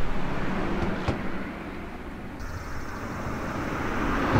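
Outdoor ambience with vehicle noise, growing louder toward the end as a vehicle approaches. A sharp click about a second in.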